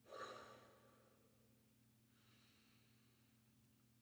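A man's slow, deep breathing: a long breath out through rounded lips at the start, fading over about a second, then a fainter breath about two seconds in.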